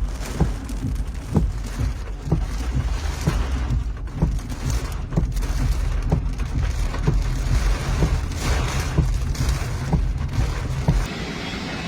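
Heavy rain and strong wind in a thunderstorm, a steady rushing noise, with a regular low thump about once a second that stops near the end.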